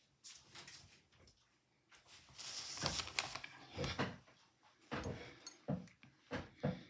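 Irregular handling noises close to the microphone: rustling with sharp clicks of knitting needles while stitches are picked up, loudest a few seconds in, with a few soft thumps near the end.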